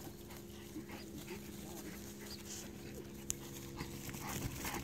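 A Bouvier des Flandres dog panting during herding work, faint, over a steady low hum.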